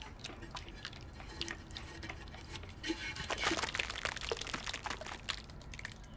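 Liquid clay slip pouring from an upturned plaster mug mould into a plastic bucket, splashing and pattering, heaviest from about three to five and a half seconds in. This is the excess slip being drained off in slip casting.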